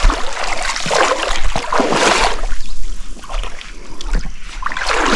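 Water splashing and sloshing as people wade through a shallow river, swelling in surges about two seconds in and again near the end.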